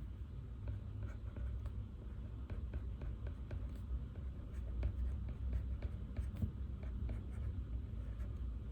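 Pen writing on paper: irregular scratching strokes and light taps, over a steady low hum.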